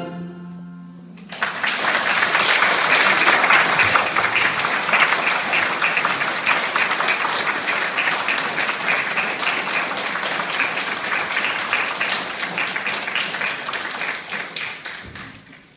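The final held note of the dance music dies away about a second in, and a small congregation breaks into applause that goes on steadily and fades out near the end.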